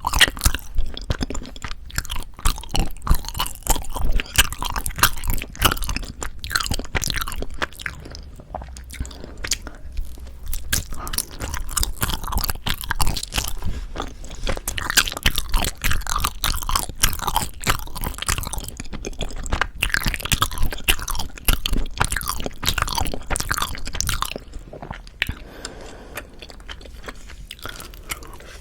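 Close-miked chewing of soft Korean rice cake (tteok): a steady run of small mouth clicks and smacks with each chew, easing off and quieter near the end.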